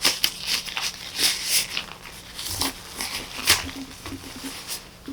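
A plate being polished with short, irregular scratchy rubbing strokes, one louder stroke about three and a half seconds in, over a faint steady hum.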